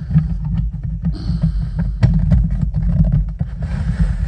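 Plastic model kit parts being handled close to the microphone: a run of irregular clicks, knocks and rustles over a heavy low rumble of handling noise.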